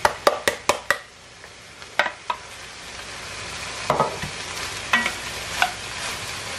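Chopped cabbage tipped into an enameled cast-iron Dutch oven with a quick run of clicks in the first second, then vegetables sizzling in the pot as they sweat, with a few knocks of a spoon stirring them.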